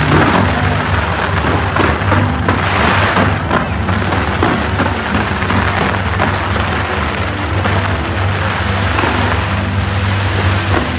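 A New Year fireworks display launched from a skyscraper's facade, heard as a dense, unbroken barrage of bangs and crackles that merge into one continuous din.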